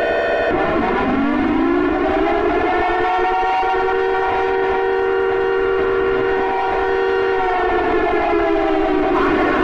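Civil defense warning siren wailing: its pitch climbs for about two seconds, holds steady for several seconds, then falls away near the end.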